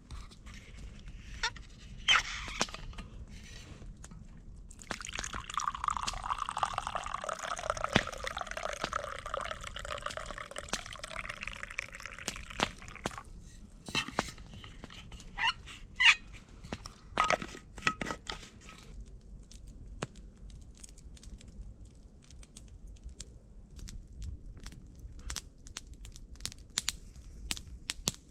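Liquid poured steadily for about eight seconds, its pitch slowly falling, followed by scattered sharp clicks and cracks.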